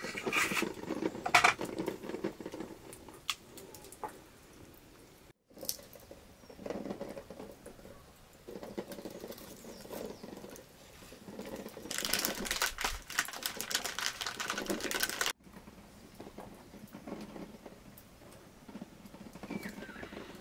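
A knife cutting fresh green stems by hand, a run of quick crisp clicks and snips as the pieces drop into a small steel bowl. The cutting is densest and loudest a little past the middle.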